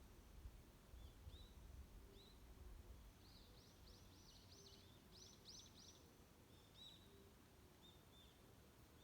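Faint songbird calls in a forest: a few short high notes, then a quick run of high, arched notes about halfway through, and scattered single notes after. A faint low note repeats every couple of seconds, over a low rumble that fades after the first few seconds.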